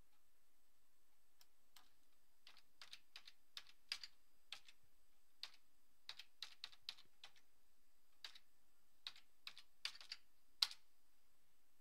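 Computer keyboard keystrokes, faint and in short bursts with pauses between them, as numbers are typed in; the loudest click comes near the end.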